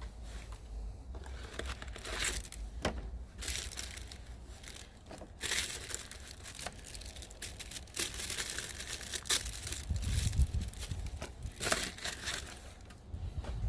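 Packaging crinkling and tearing in repeated rustling bouts as a new oil filter O-ring is unwrapped.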